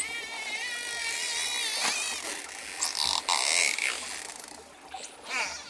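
Dolphins whistling and squealing: several wavering calls overlap, with a sharp rising whistle about two seconds in and a quieter spell near the end.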